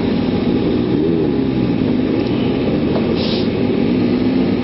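Kawasaki ZX-6R inline-four sport bike engine running at speed as heard from the rider's helmet camera, its revs rising and falling, over steady rushing noise.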